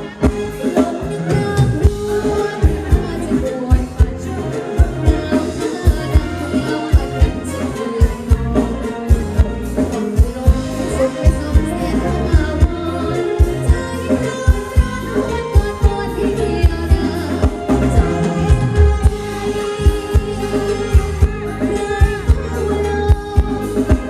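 Thai ramwong dance music played live by a band through a PA, with electric guitar and a steady drum beat, and a woman singing over it.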